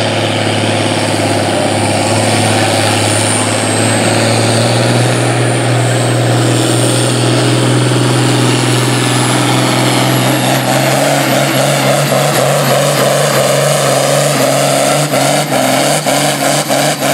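A John Deere farm tractor's diesel engine under full load, pulling a weight-transfer sled. The engine runs steadily with a high whine that rises slowly over the pull, and its note steps up twice. Near the end comes a quick run of sharp cracks.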